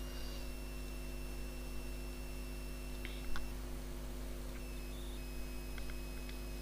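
Steady electrical mains hum with a faint high whine. A couple of faint mouse clicks come about three seconds in, and a few more near the end.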